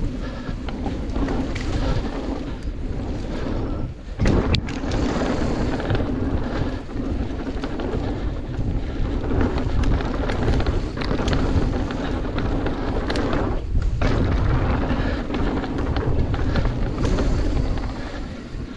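Mountain bike rolling down a dirt trail: continuous tyre noise on the dirt mixed with wind on the camera's microphone and rattling from the bike. The noise dips briefly about four seconds in and is followed by a sudden loud jolt, and it dips again near the fourteen-second mark.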